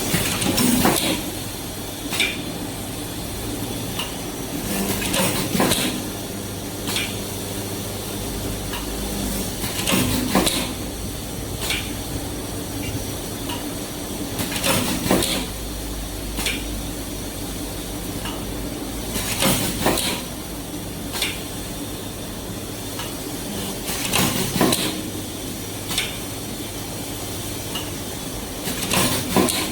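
Automatic triple-head riveting machine with an indexing plate, cycling about every five seconds: each cycle a cluster of sharp metallic clanks as three rivets are set together, with lighter single clicks in between over a steady machine hum.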